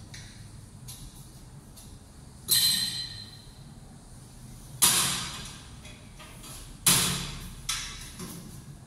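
Hinged metal window grille being swung open and shut, knocking against the aluminium window frame: three sharp metallic clanks about two seconds apart, the first ringing briefly, then a lighter knock.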